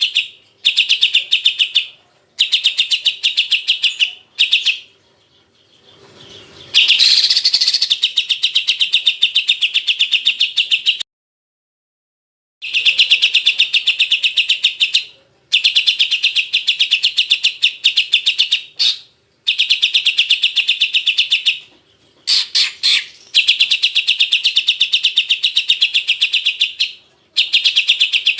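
Cucak ijo (green leafbird) song in its rough 'isian kasar' style: rapid, dense trills of chirps in phrases of a few seconds separated by short pauses, with one complete dropout of about a second and a half near the middle.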